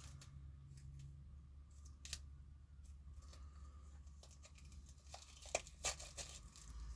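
Faint handling of board game cards and their packaging: a single light click about two seconds in, then a few small clicks and rustles near the end, over a low steady hum.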